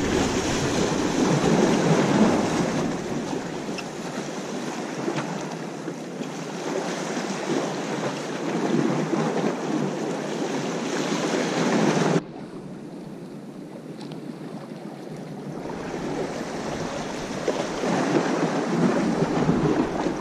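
Small ocean waves washing and splashing against jetty rocks, with wind buffeting the microphone. The noise drops suddenly about twelve seconds in, then swells up again near the end.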